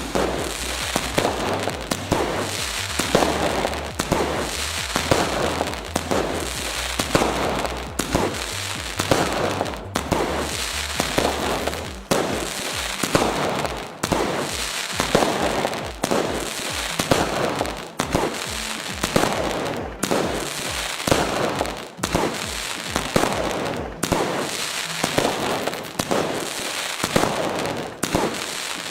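Multi-shot fireworks cake (a 60-shot skycracker) firing shells in quick succession, about one a second. Each shell bursts with a sharp bang and trails off in crackling.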